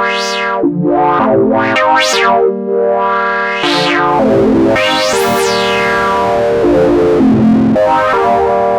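Korg monologue analog monophonic synthesizer playing a preset: a monophonic line of bright notes, with the filter sweeping open and shut several times, roughly once a second.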